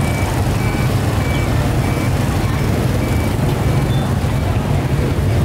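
A vehicle engine running steadily with a low rumble. Over it, a short high beep repeats about three times every two seconds.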